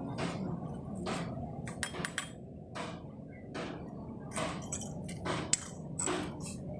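A series of short scratchy strokes and a few light metallic clinks, sharpest about two seconds in and again near five and a half seconds, over a low steady hum.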